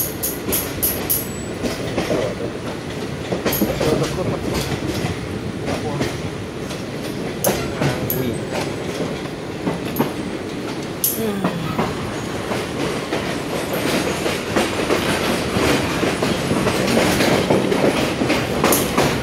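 Railway carriage running along the track, a steady rumble and hiss with the wheels clicking sharply over rail joints.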